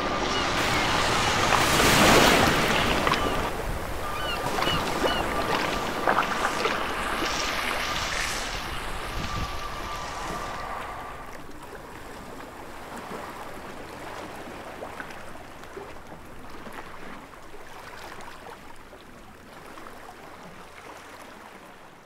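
Ocean surf washing on a beach, swelling about two seconds in and then slowly fading away.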